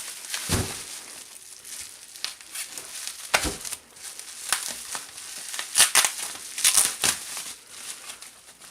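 Packaging around a new exhaust pipe being cut and pulled open: irregular crinkling and rustling with scattered sharp crackles, busiest near the end.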